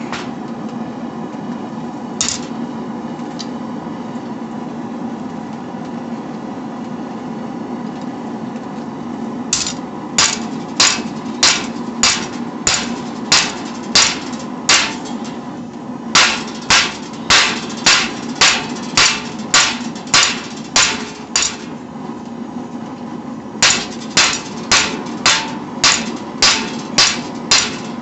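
Hammer blows on hot steel at the anvil, forging a knife blank: a single blow about two seconds in, then two long runs of even strikes, roughly one and a half a second, with a pause of about two seconds between them. Under them the forge runs with a steady hum.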